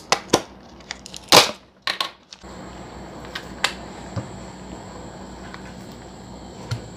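Handling of a plastic butter tub and a silicone spatula: a few sharp clicks and a short scraping rustle about a second and a half in as the tub is opened and butter is scooped, then a few light ticks of the spatula against the tub and a glass bowl.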